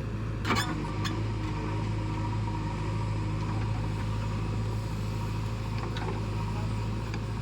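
A vehicle engine running steadily at a constant speed, with a few sharp clicks over it; the loudest comes about half a second in.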